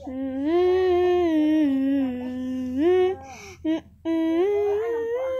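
A child humming a tune with closed lips, in long held notes that step up and down, with a short break about three seconds in before a rising phrase.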